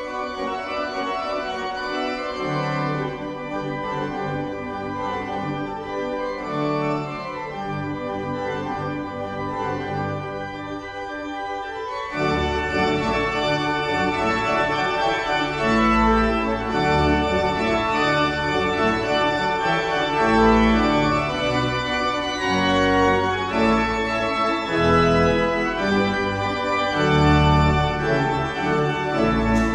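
Organ playing slow held chords; about twelve seconds in, deep bass notes join and the music grows louder and fuller.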